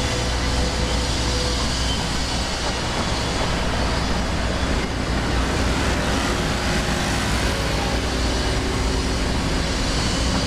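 Steady street traffic: engines of cars and other vehicles running, with a constant low hum.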